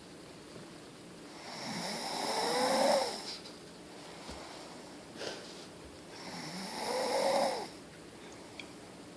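Snoring: two long snores about five seconds apart, each building in loudness for a second or so and then cutting off, with a brief sharp sound between them.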